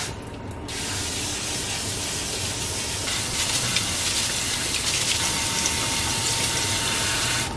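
Kitchen faucet running water through rice in a mesh strainer and splashing into a stainless steel sink, a steady hiss after a brief dip in the first second.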